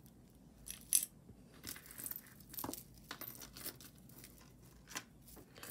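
Jewelry and its bag being handled: faint crinkling and rustling with scattered small clicks.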